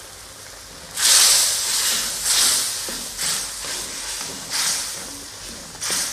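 Chili sauce sizzling and hissing in a hot wok as it is stirred with a slotted spatula; the hiss starts suddenly about a second in and swells again with each stir, about once a second.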